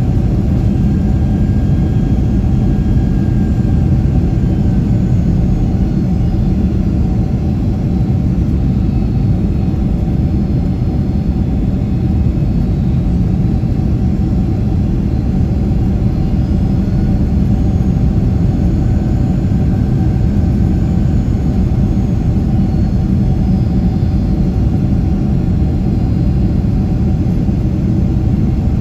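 Steady low roar of a Boeing 767-300ER's jet engines and airflow, heard inside the cabin at a window seat over the wing, with a faint steady hum above it, as the airliner descends toward landing.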